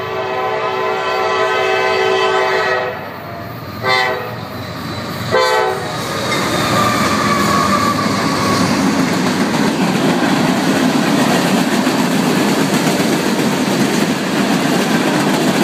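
CSX diesel freight locomotives sound their air horn in one long blast and then two short ones. Then the locomotives and freight cars pass close by, a steady loud rumble with rail clatter.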